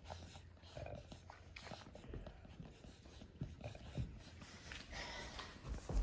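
Six-week-old Australian Labradoodle puppies nursing from their mother: faint, scattered suckling and smacking sounds, with a short puppy whine near the end.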